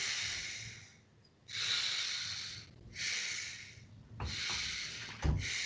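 A person breathing forcefully, about five hard breaths of roughly a second each with short gaps, taken while pressing a hand against the head in an isometric neck exercise. Two brief low thumps come near the end.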